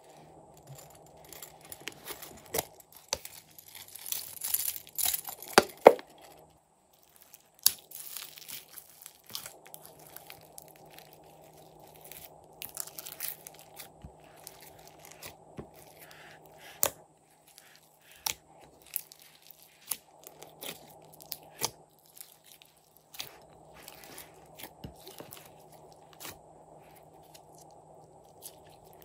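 Hands pressing, folding and stretching glossy slime mixed with floam and foam beads: irregular sticky crackles and small clicks, loudest around four to six seconds in.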